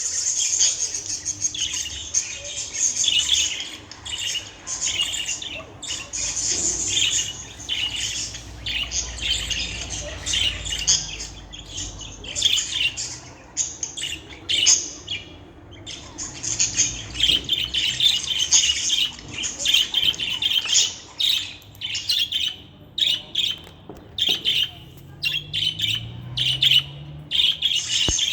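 A budgerigar chattering and warbling in a long, fast stream of chirps and squawks, with a few brief pauses.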